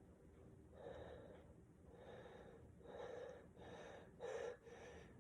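A person with a cold taking a series of about six short, faint, gasping breaths, the loudest a little past four seconds in: the hitching in-breaths of a sneeze building up.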